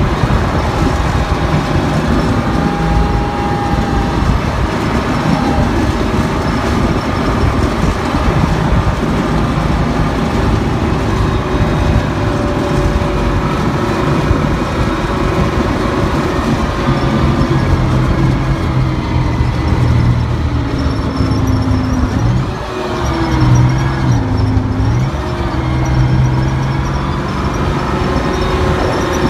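Engine of an armoured military vehicle driving across a grass field, heard from on top of the hull: a steady loud drone over a broad rumble of running gear. About three quarters of the way through, the engine note drops briefly, then rises and falls as the revs change.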